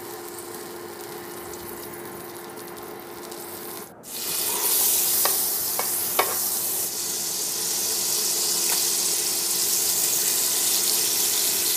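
Oil and margarine sizzling in the hot pot of an infrared electric cooker, a steady frying hiss with a low hum under it. After a brief dropout about four seconds in the sizzle comes back louder and brighter, with a couple of light clicks.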